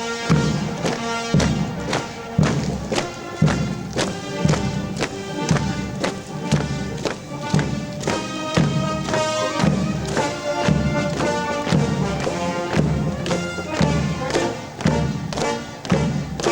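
Military band playing a dobrado, a Brazilian military march: brass melody over an even bass drum beat, strongest about once a second.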